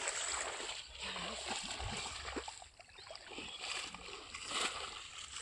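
Shallow water splashing and sloshing in irregular surges as feet wade and hands churn through a flooded rice paddy.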